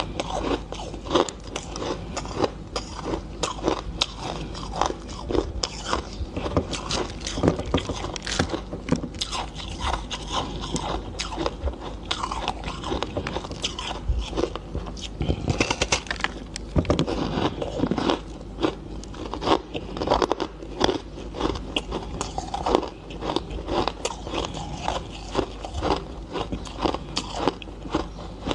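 A block of coloured crunchy ice being bitten and chewed: an irregular, unbroken stream of sharp crunches and crackles.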